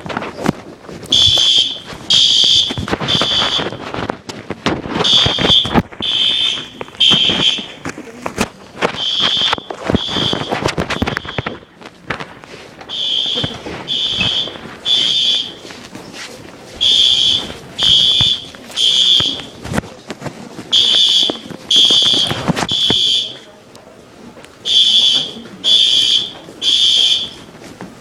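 School fire alarm sounding a high-pitched tone in the temporal-three evacuation pattern: three short beeps about half a second apart, then a pause, repeating about every four seconds.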